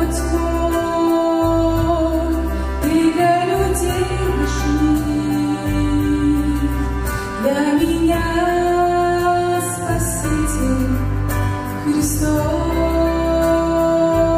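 A woman singing a Christian song into a microphone in long held notes, over instrumental accompaniment with a deep bass.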